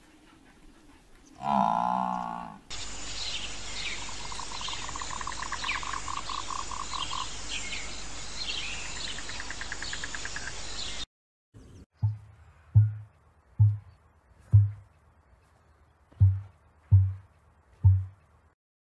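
A Highland cow lowing once, briefly. Then birds chirping and trilling over a steady hiss. Then an emu's deep drumming: seven short, low booms about a second apart.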